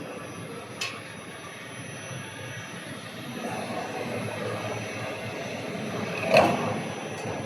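Steady mechanical workshop noise, with a short click about a second in and one sharp, loud metallic knock near the end.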